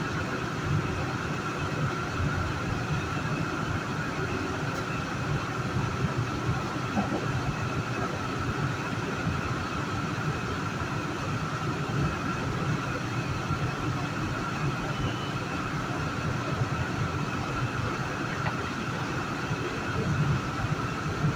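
Metro-North commuter train running at speed, heard from inside the car: a steady rumble of wheels on the rails with a steady high whine over it.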